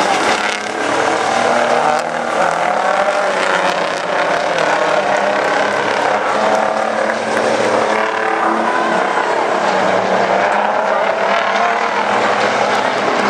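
Several racing semi trucks' diesel engines running together on the track, loud and continuous, with their engine notes wavering up and down.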